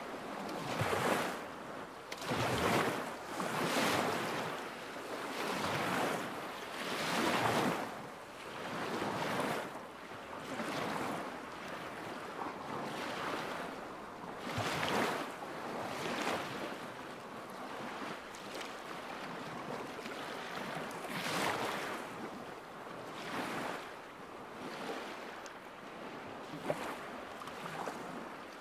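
Small lake waves lapping at the shore, a soft splashing swell every second or two, over a steady wind hiss.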